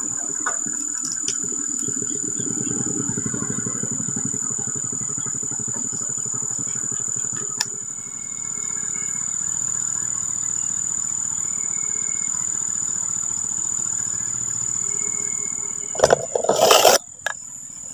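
Small engine running steadily in the distance: the genset powering an electrofishing rig on the river. A steady high insect drone runs above it, and loud knocks and rustling come near the end.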